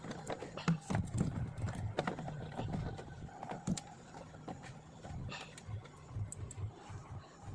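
Small plastic Yakult bottles knocking against each other and the fridge shelf as they are set in, a run of light, irregular clacks that thin out toward the end.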